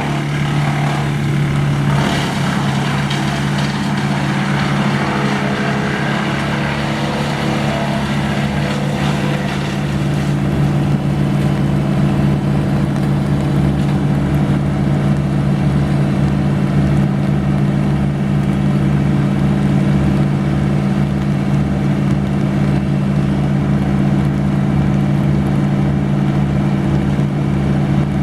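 A large engine of the tree crew's equipment running steadily under load, with a low throb pulsing about twice a second.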